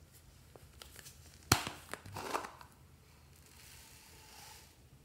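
A sharp plastic click as the lid comes off a small plastic bottle of foam beads, about one and a half seconds in, followed by a short rattle. Near the end comes a soft hiss of foam beads pouring out of the bottle.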